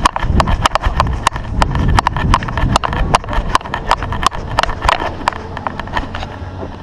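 Fireworks going off in a rapid, irregular string of sharp cracks, several a second, thinning out near the end.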